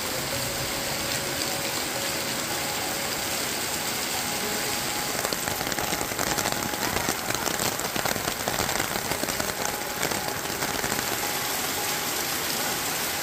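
Heavy rain falling steadily. From about five to eleven seconds in, the rain is louder and crackly as drops hit a hard surface close by.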